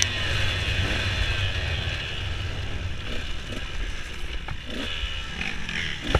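Dirt bike engine on a race course, throttled back to low, uneven revs with a few short blips, under wind rush on the bike-mounted camera's microphone. A couple of sharp knocks come near the end as the bike goes over rough trail.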